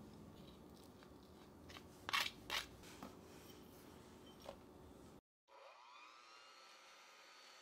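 A few light taps and clicks in the first half, two of them close together about two seconds in, as lime zest is added to cream in a plastic jug. After a brief cut, an electric hand mixer starts up, its whine rising and then settling into a faint steady hum.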